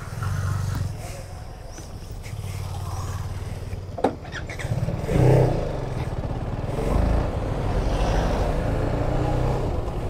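Motorcycle engine running while riding, with road and wind noise. There is a short sharp knock about four seconds in, and the sound swells briefly a second later.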